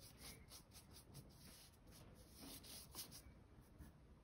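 Faint swishes of a paintbrush loaded with watercolour stroked across crayoned paper: a run of short, irregular brush strokes, a few a second.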